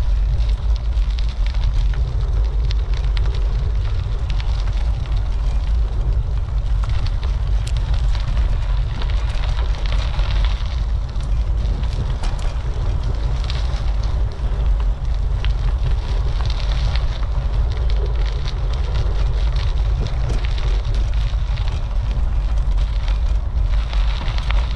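Wind buffeting a GoPro's microphone on a moving bicycle: a steady, heavy low rumble with scattered crackles.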